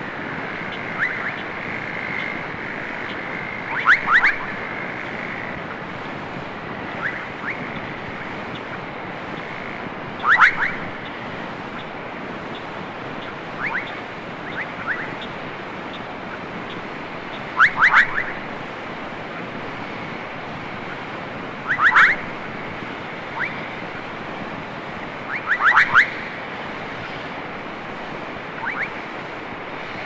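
Frogs calling at night: short, sharp clicking calls in quick clusters of two to four, repeating every few seconds, with fainter single calls in between, over a steady hiss.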